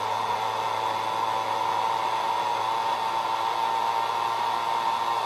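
Countertop blender running steadily on its frozen-drink setting, blending ice with chopped pineapple and orange juice into a slushy drink.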